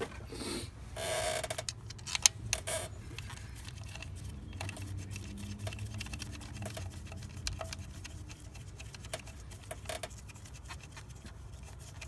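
Gloved hands working a plastic electrical connector back onto a GDI engine's high-pressure fuel pump: scattered small clicks and rustles, with one sharp click about two seconds in.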